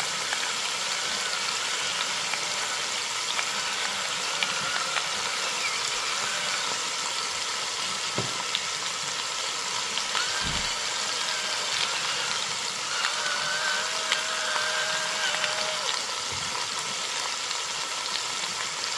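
Pork tenderloins sizzling as they sear in hot oil in an enameled cast-iron Dutch oven, a steady sizzle that holds at an even level throughout.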